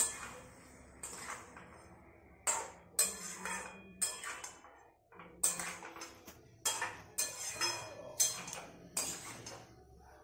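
Metal spatula scraping and clinking against a steel wok as a cabbage fry is stirred, a stroke about every half second.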